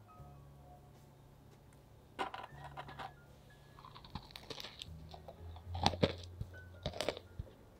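Crisp crust of a chocolate brownie cookie crunching and crackling in short bursts, first about two seconds in and again from about four seconds until shortly before the end, over a few soft low background music notes.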